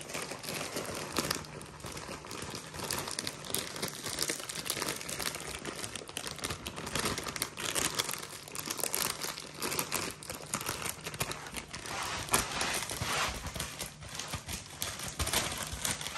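Clear plastic bag crinkling and rustling as it is handled and shaken, tipping ground egusi (melon seed) into a plastic storage container. The rustle is irregular and goes on throughout, loudest a little after halfway.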